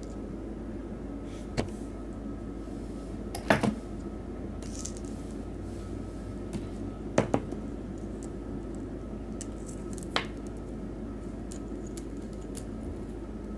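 A handful of short, sharp metallic clicks as a small jighead with a swivel and spinner blade and a pair of pliers are handled on a tabletop, the loudest a quick double click. A steady low hum runs underneath.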